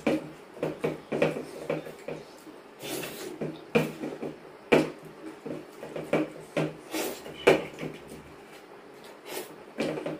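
Two people eating rice and curry by hand from steel plates: fingers scraping and tapping on the metal, with chewing and mouth sounds, in irregular clicks and knocks.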